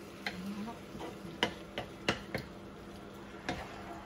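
Wooden spatula knocking and clicking against a non-stick frying pan while chicken livers are stirred. About six sharp, irregularly spaced knocks.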